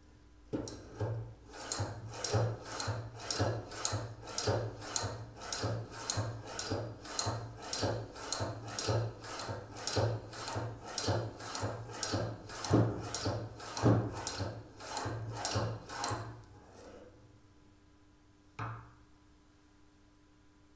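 Bassoon cane gouging machine being worked by hand: the blade carriage is pushed back and forth over the cane in the bed, each pass shaving off a curl of wood with a rasping stroke, about two strokes a second. The strokes stop after some sixteen seconds, and a single knock follows near the end.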